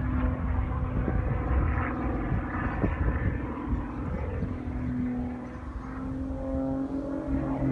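Aircraft engines droning, a steady pitched hum that drifts slightly in pitch, over a low rumble of wind on the microphone.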